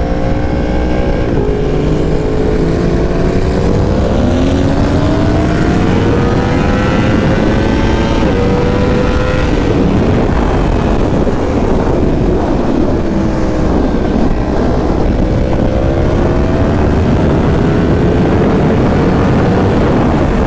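Yamaha R1 inline-four with a full Graves exhaust pulling hard under acceleration, its pitch climbing and dropping back at upshifts about a second in and again about eight seconds in. A rushing noise runs under the engine. Near the end the pitch eases, then climbs again.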